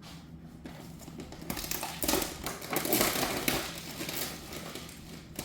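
Plastic bag of spinach being handled, crinkling and rustling, loudest from about one and a half to four seconds in.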